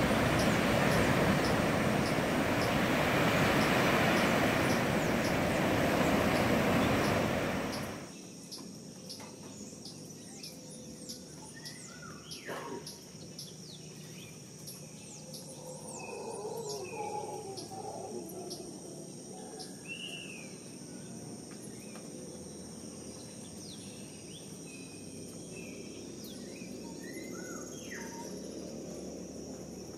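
A loud, steady rushing noise that cuts off abruptly about eight seconds in, leaving quiet outdoor ambience: a steady high-pitched insect drone with scattered bird chirps and short whistles.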